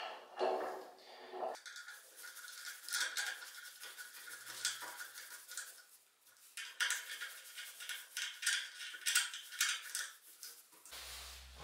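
Steel hex key working socket cap screws in an aluminium plate: quick metallic clicks and scraping as the key turns in the screw heads, with a short pause midway. A low hum comes in just before the end.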